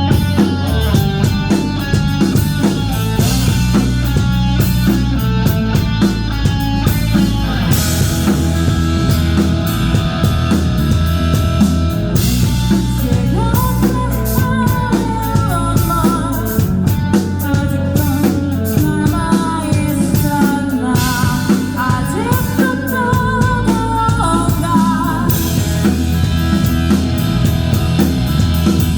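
Rock band playing live, with a drum kit, electric guitars and bass, and a sung melody over them from about halfway through.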